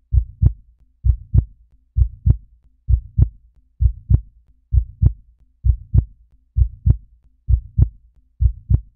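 Heartbeat sound effect: steady lub-dub double thumps, about one beat every 0.9 seconds.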